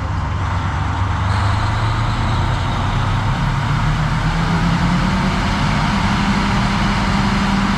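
Wood grinder powered by a 1200-horsepower Caterpillar diesel engine running hard: a loud, steady machine noise. The engine note climbs gradually around the middle.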